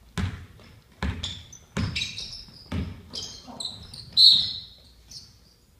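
A basketball dribbled on a hardwood gym floor, four bounces in the first three seconds, with sneakers squeaking sharply on the floor through the middle; the loudest squeak comes about four seconds in.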